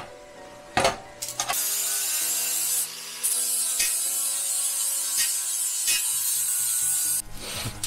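Welding steel patch plates onto an AE86's rusted body section: two short bursts of hissing welding, then a longer steady run of it with a brief break about three seconds in, stopping a little before the end.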